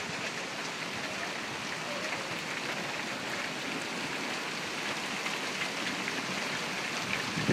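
Hailstorm with rain: a steady hiss of precipitation falling on grass, wooden decking and pavement, with faint scattered pattering.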